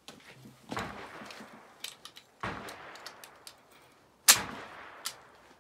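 Three sharp cracks, each trailing off in an echo, the loudest about four seconds in, with small metallic clicks between them as a Mannlicher M95 straight-pull rifle is being loaded.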